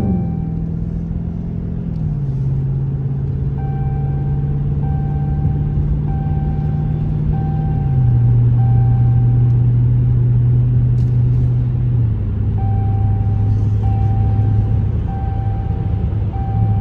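Straight-piped 5.7 L HEMI V8 exhaust of a Dodge Charger R/T droning loudly inside the cabin while driving, its pitch dropping in three steps as the automatic gearbox upshifts. A short electronic beep repeats steadily for a few seconds at a time.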